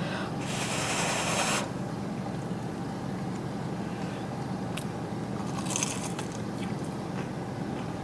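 Eating sounds from a meal of fried chicken tenders and ice cream: a rustling scrape in the first second and a half, then chewing with a brief crisp crunch near six seconds, over a steady low hum.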